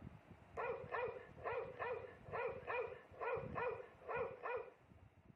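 Dog barking in pairs, about ten barks in four seconds: woof-woof, woof-woof.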